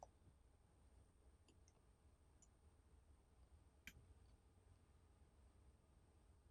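Near silence with a few faint, small clicks, the clearest about four seconds in: a small Phillips screwdriver turning out the tiny screws of an iPhone 5C's connector shield plate.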